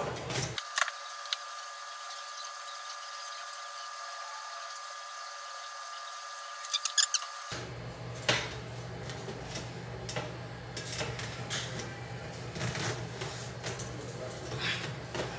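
Weighted pull-ups on a doorway pull-up bar: scattered short knocks and breaths from the lifter, the bar and the dip belt's hanging weight, with a quick run of clicks about seven seconds in, over a steady low hum.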